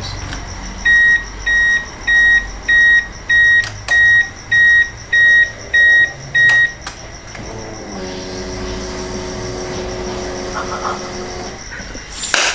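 Nissan Stagea's in-car warning chime beeping about ten times at an even pace as the ignition key is turned. A steady electric hum with a few overtones follows for about four seconds as the ignition comes on.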